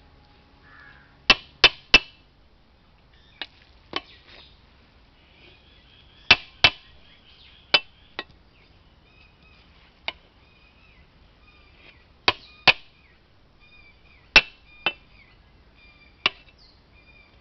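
Metal ladle knocking against the sides of a large aluminium pot while turning over cooked biryani rice: sharp clanks in bursts of two or three, every few seconds.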